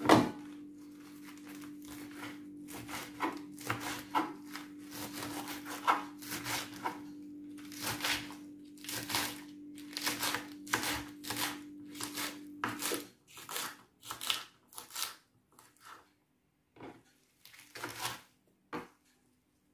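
Fresh red and green leaf lettuce being torn apart by hand onto a wooden cutting board: a run of crisp rips and crunches, coming thick and fast, then sparser after about 13 seconds. A steady low hum runs underneath and stops about 13 seconds in.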